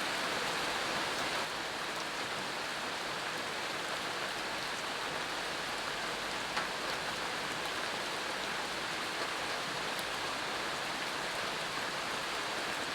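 Steady rain falling, an even patter of drops on surfaces with a few individual drops standing out.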